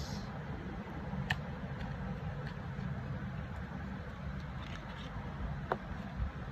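A small cardboard box being opened by hand: a few faint clicks and taps from the packaging, over a steady low hum.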